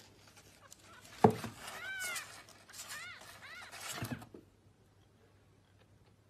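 A young kitten mewing several times in short, thin calls that rise and fall, while its claws scrabble on cardboard. A single sharp thump about a second in is the loudest sound, and all goes quiet after about four seconds.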